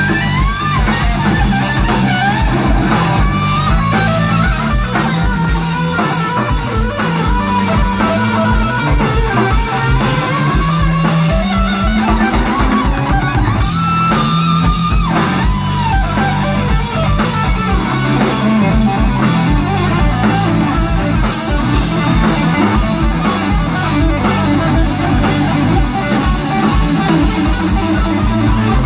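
Live rock band playing an instrumental passage: electric guitar lead with bent notes and one long held note about halfway through, over electric bass and a drum kit keeping a steady beat.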